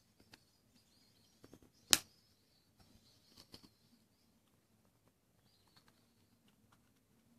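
Small plastic clicks and one sharp snap about two seconds in as a screwdriver pries apart the plastic casing of a Suzuki smart-key remote.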